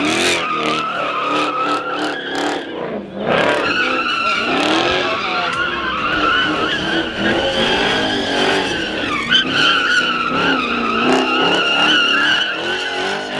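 Car tires squealing steadily as a car drifts and slides, with the engine revving up and down beneath. The squeal breaks off briefly about three seconds in, then picks up again.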